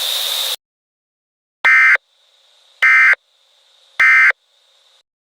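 Emergency Alert System end-of-message signal: three short bursts of screechy digital data tones, about a second apart, marking the end of the alert. A steady hiss cuts off about half a second before the bursts begin.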